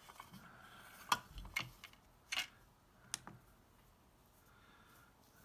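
Four sharp plastic clicks and knocks within about two seconds as a Homgeek digital pocket scale with a hinged clear lid is handled, set down on a wooden bench and opened, then quiet handling.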